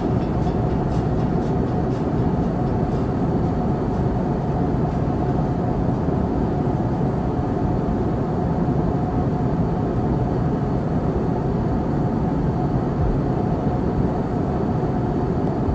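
Steady cabin noise of a jet airliner in cruise: an even rush of engine and airflow noise, with a faint steady tone running through it.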